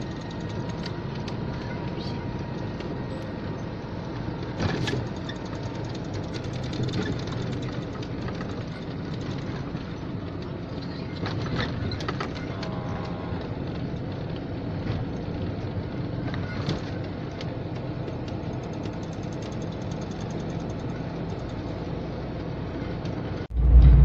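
Steady road and engine noise inside the cab of a GAZelle van on the move, with scattered light clicks and knocks. Just before the end it switches abruptly to a much louder low rumble.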